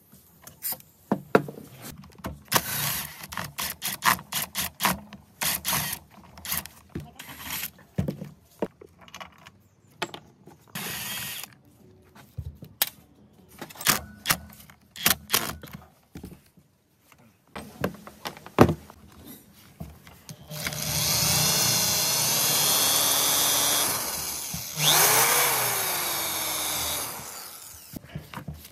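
Electric drill-driver turning out screws from a saw's plastic handle. There are short clicks and brief bursts of the motor, then two longer runs of the motor near the end, the second winding down in pitch as it stops.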